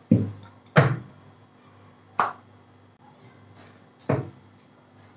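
Wooden rolling pin knocking on a stone counter as chapati dough is rolled out: four dull knocks at uneven intervals, with a fainter tap in between.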